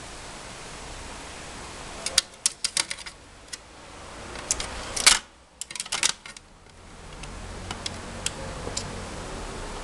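Hard plastic clicking and clattering from a treat puzzle toy as a rabbit noses and shifts its turning lid: two quick flurries of clicks, about two and five seconds in, then scattered single clicks, over a steady hiss.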